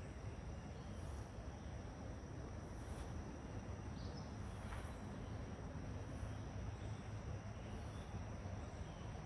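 Bicycle tyres rolling steadily over a gravel towpath: a low, even rolling noise, with faint high chirps over it.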